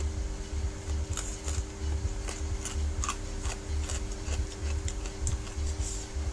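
Close-up eating sounds: sharp wet clicks and smacks of chewing noodles, with a metal fork tapping and scraping a plastic plate. Underneath run a steady low hum and a regular low thumping about twice a second.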